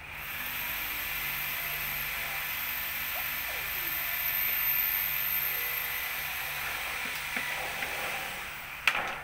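A steady hiss with a thin high whine that stops about seven seconds in, then a sharp click near the end.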